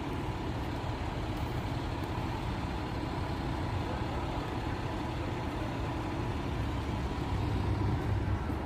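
Steady low rumble of an idling motor vehicle.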